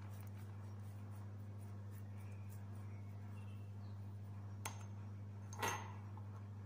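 Faint scratchy strokes of a silicone pastry brush on chicken pieces in an aluminium pan, over a steady low hum. A sharp click comes near the end, then a louder knock a second later.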